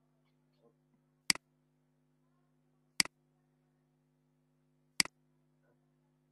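Three sharp computer mouse clicks, each about two seconds apart, over a faint steady hum.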